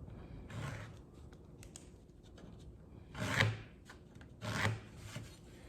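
A square being handled and slid against a pine board while the board is marked out: a few short scraping and rubbing sounds, the loudest about three seconds in.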